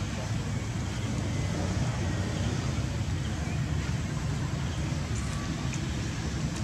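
Steady low rumble with an even hiss, outdoor background noise, with a few faint ticks about five seconds in.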